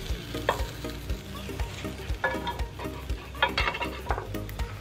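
Pancakes sizzling in a frying pan, with a few short scrapes of a utensil, under background music with a steady beat.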